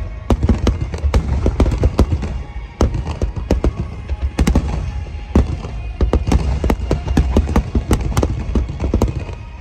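Aerial fireworks shells bursting in a dense barrage, many sharp bangs in quick irregular succession over a continuous low rumble, with music playing along.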